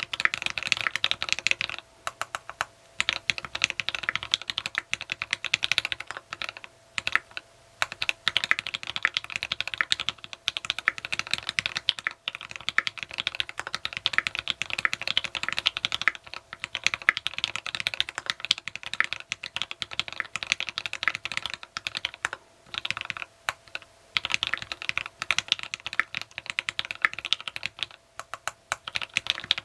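Fast typing on a TX66 custom mechanical keyboard with lubed, filmed Tealios V2 linear switches in a brass plate and PPS keycaps: rapid key clacks in runs of a few seconds with brief pauses between.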